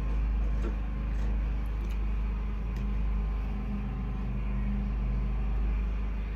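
A steady low mechanical drone, like a running motor or engine, continuing unchanged throughout, with a few faint clicks from fabric being handled at the sewing machine.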